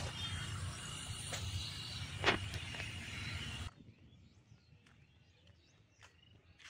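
Steady outdoor rumble and hiss that cuts off abruptly about three and a half seconds in, leaving only faint scattered ticks.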